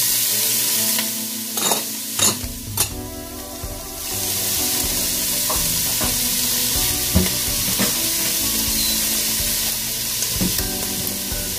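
Diced kielbasa sausage, pepperoni and mushrooms sizzling as they fry in a stainless steel pan, with a few sharp clicks about two seconds in.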